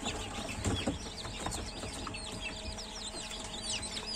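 A brood of newly hatched chicks peeping constantly: many short, high, falling chirps overlapping one another. A light knock sounds about a second in.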